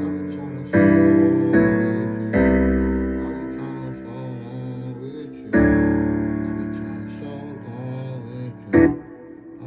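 Piano-style keyboard chords, each struck and left to ring out and fade. Three come close together in the first couple of seconds and another about halfway through, with a deep bass note under one of them and a short, loud hit near the end.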